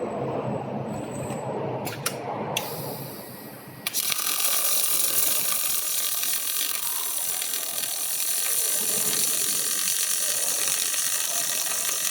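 Robotic arc welding on a fan impeller: after a couple of clicks, the arc strikes about four seconds in and crackles steadily along the weld seam.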